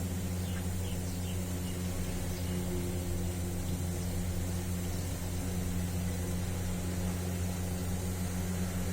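Steady low mechanical hum that holds an even pitch, over a faint background hiss.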